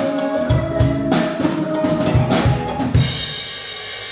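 A live rock band's drum kit playing a fill of bass drum and snare strokes under a held note, ending about three seconds in on a crash that rings on.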